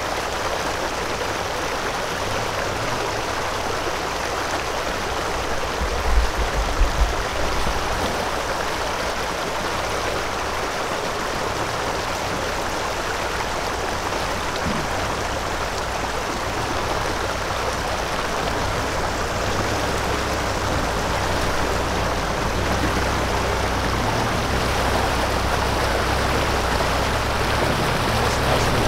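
Steady rush of river water, with a vehicle engine's low hum underneath that grows slightly louder near the end. A few low thumps about six seconds in.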